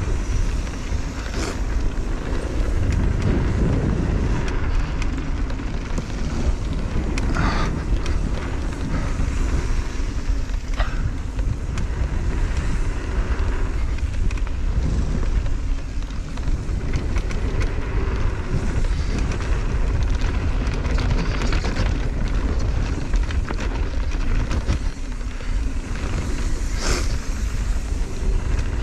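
Wind rushing over the helmet- or body-mounted action-camera microphone and mountain bike tyres rolling over a dirt trail at speed, a steady rumbling noise. A few sharp clacks of the bike rattling over bumps, near the start, about a quarter and a third of the way in, and near the end.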